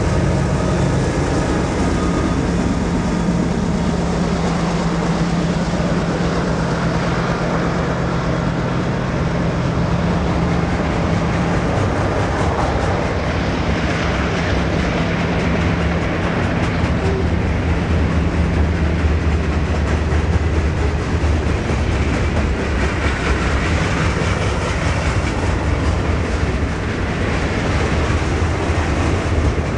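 Diesel-hauled freight train passing close by. The locomotives' engines drone steadily at first, fading after about twelve seconds, and then the train's freight cars keep rolling past with a continuous rumble and clatter of wheels on rail.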